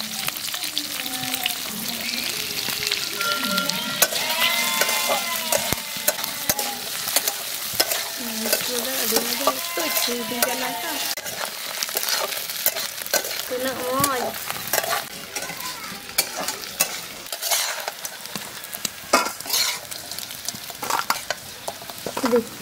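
Small crabs frying in oil in a metal kadai, a steady sizzle, while a metal spatula stirs and scrapes them against the pan. The knocks and scrapes of the utensil on the metal come more often in the second half.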